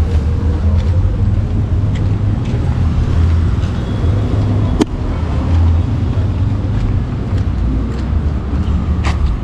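Town street traffic noise: a steady low rumble, with a sharp click about five seconds in.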